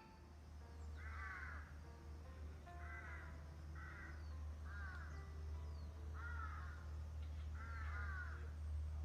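A crow cawing about six times, each a harsh arched call a second or so apart, over a steady low rumble and faint background music.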